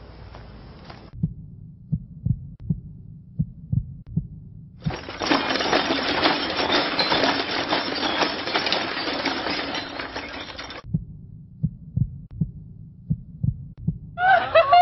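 A heartbeat sound effect: low, dull thumps coming in quick pairs. A loud rushing noise comes in about five seconds in and cuts off about six seconds later, after which the thumps return.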